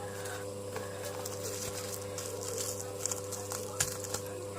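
Steady low electrical hum with a few faint, scattered clicks and light handling noises.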